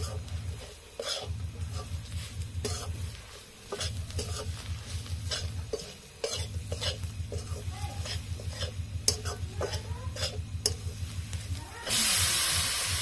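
A spatula stirring and scraping onions and spice masala in a kadai, with short clicks of the spatula against the pan over a low sizzle and a low rapid throb that comes and goes. About 12 seconds in, a loud sizzling hiss starts as chopped tomatoes go into the hot oil.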